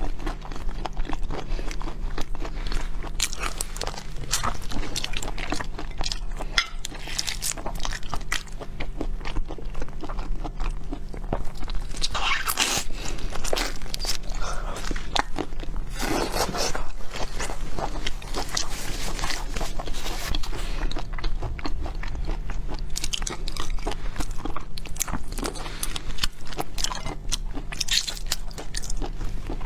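Close-miked eating of seafood: irregular biting, crunching and chewing with wet crackles, over a steady low electrical hum.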